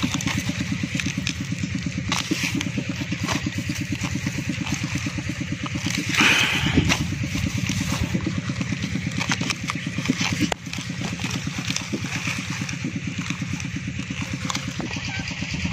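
A small engine running steadily with an even, fast pulse, under scattered rustles and snaps of onion leaves being gripped and pulled by hand.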